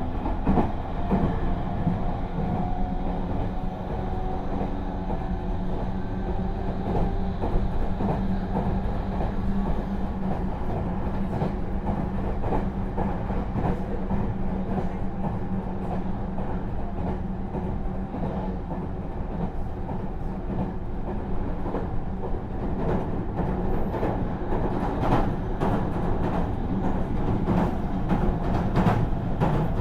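Inside a Meitetsu 3700 series electric train car running between stations: steady rumbling running noise with a hum from the car's Toyo GTO VVVF inverter, which is unusually loud on this car. Sharp rail-joint clicks come more often near the end.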